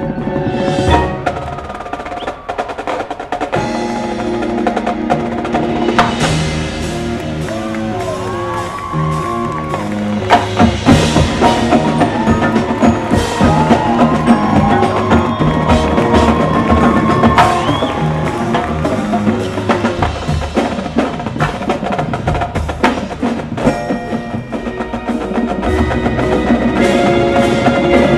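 Marching band show music carried by the front-ensemble pit percussion: marimbas and vibraphones playing pitched lines over drum rolls, with occasional crashes. The drums grow louder over the last few seconds.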